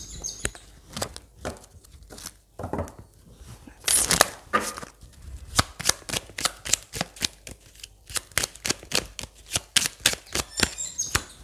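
Tarot cards being shuffled and handled: a rapid, irregular run of sharp card snaps and taps.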